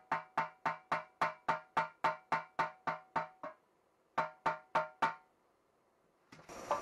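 Hammer blows on the steel exhaust muffler of a Yamaha Grizzly 660 ATV, driving a tool into its outlet to free a stuck part. The blows come about four a second, each ringing at the same metallic pitch. They stop about three and a half seconds in, and four more come after a short pause.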